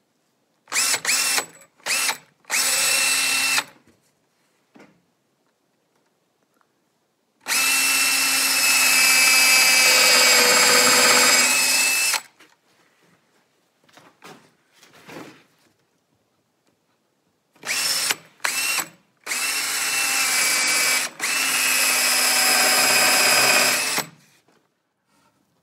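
Cordless drill boring angled holes through a marine plywood boat bottom into the transom, its motor whining in a few short trigger bursts, then a long run of about five seconds, then more short bursts and two longer runs near the end.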